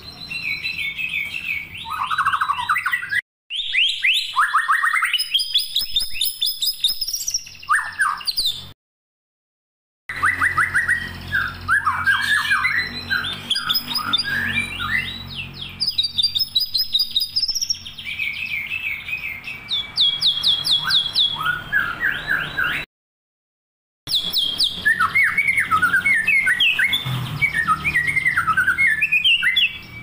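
A songbird singing a fast, varied song of whistled phrases and rapid trills, broken three times by abrupt dead silences, the longest about a second and a half near ten seconds in.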